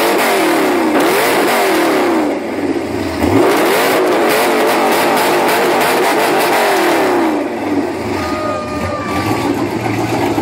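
The Tumbler Batmobile's engine being revved hard again and again, its pitch swinging up and down with each blip of the throttle. The revving eases a little after two seconds, comes back strongly, and drops to a lower running level for the last few seconds.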